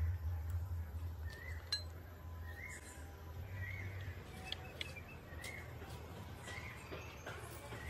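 A bird repeating a short rising-and-falling call about once a second, with light clicks and clinks of hard plastic roof-rack mount parts being handled.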